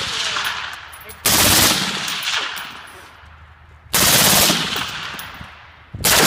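Short bursts of full-auto fire from a 7.5-inch-barrel M16 fitted with a Huntertown Arms Kestrel 556 suppressor. There are three bursts about two to three seconds apart, each loud and sudden and trailing off in a long echo.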